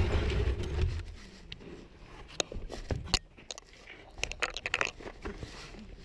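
Close-up handling noise of someone crawling out through a narrow gap over concrete rubble: clothing rubbing and a low rumble of the body-worn camera being jostled in the first second, then scattered scrapes, clicks and knocks of debris and a board being shifted, busiest near the end.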